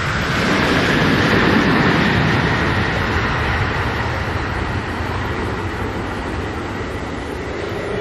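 Jet aircraft engines running with a high whine over a loud rushing noise, swelling in the first second and then holding steady.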